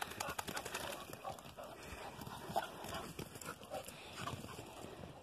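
Dogs moving about at a muddy water hole, making short, faint dog noises among many small clicks and scuffs.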